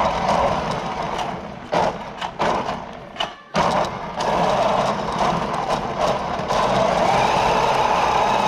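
RC car's motor running and its tyres skidding as it drifts, a steady whirring hiss broken by a few sharp knocks and a short pause about three seconds in.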